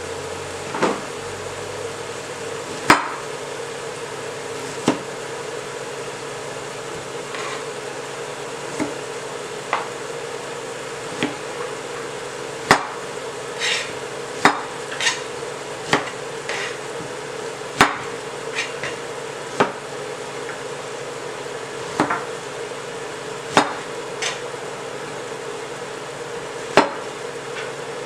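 Kitchen knife cutting Thai eggplants on a cutting board: irregular sharp knocks of the blade against the board, one every second or two, over a steady hum.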